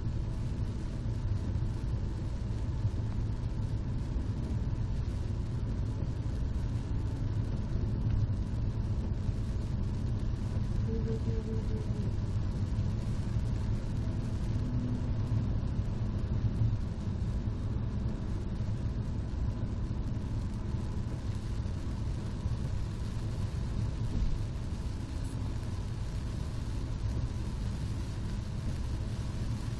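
Car cabin road noise at motorway speed on a wet road: a steady low rumble of tyres and engine heard from inside the car.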